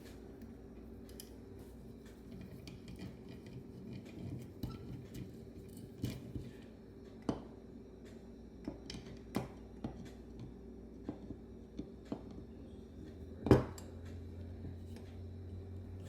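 Scattered light metal clicks and taps from handling a Bendix Stromberg WWC carburetor and hand tools, with one louder knock late on, over a steady low hum.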